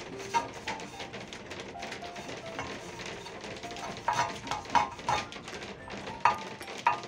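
Soft background music with short held notes, over a paintbrush scraping inside a terracotta pot as sealer is brushed on. Several sharp taps of brush on clay come between about four and seven seconds in.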